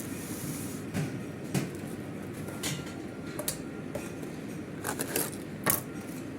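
Kitchen work noises: a handful of sharp knocks and clinks, like utensils or containers being handled, over a steady low hum.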